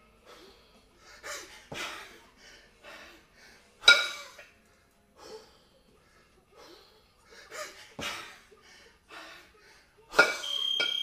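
Heavy, rapid breathing of a tired kettlebell lifter resting with two 22 kg kettlebells in the rack position during a jerk set. Two sharp, loud efforts, about four seconds in and near the end, come with the bells clanking and briefly ringing as he jerks them overhead.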